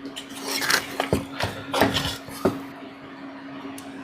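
Light clicks and taps, about five scattered ones, as a replacement rectifier diode is fitted onto a charger's circuit board, over a steady faint hum.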